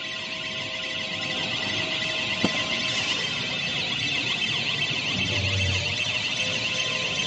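Battery-powered transfer cart's electronic warning alarm sounding, a steady high warbling tone that grows slightly louder.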